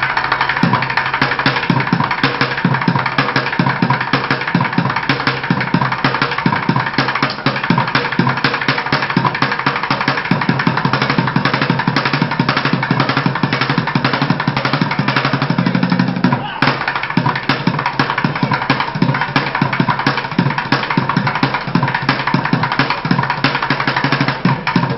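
Fast, dense drumming with sticks on overturned plastic buckets, a continuous rapid stream of hits with a brief break about two-thirds of the way through.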